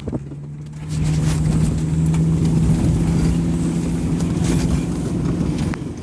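Subaru Impreza's flat-four engine running at a steady pitch under load as the car is driven over a dirt track, heard from inside the car; it gets louder about a second in. Scattered knocks come through over the engine.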